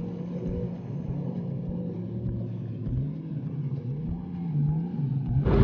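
Personal watercraft (jet ski) engine running under way, its pitch rising and falling as the throttle is worked, over a rushing noise.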